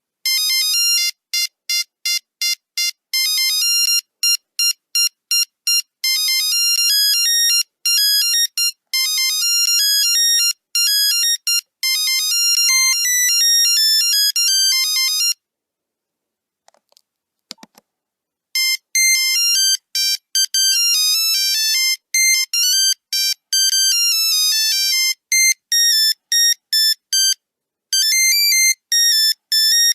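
Nokia 3310 monophonic ringtones: fast, high-pitched beeping melodies of short notes. One tune plays, stops about halfway through, and after a pause of about three seconds with a few faint clicks the next tune starts.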